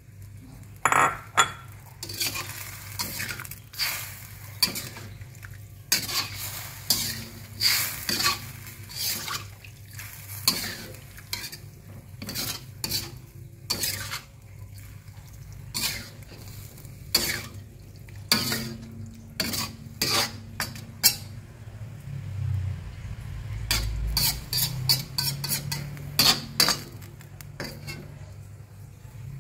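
Metal spatula and spoon scraping and clinking against a stainless steel wok as tofu, greens and meat in a little broth are stirred, in irregular strokes, over a steady low hum. A low rumble comes in for a few seconds near the end.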